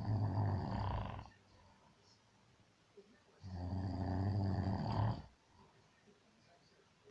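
Snoring in slow breaths. One snore fades out about a second in, another lasts about two seconds in the middle, and there are quiet pauses between them.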